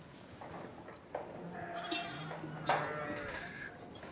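Sheep bleating, several overlapping calls in the middle of the stretch, with a few sharp knocks among them.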